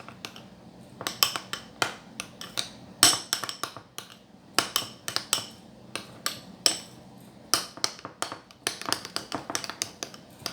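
Mixing utensil clicking and tapping against the side of a bowl while stirring shaving foam into glue for slime, in an uneven run of sharp clinks, several a second at times, with short pauses.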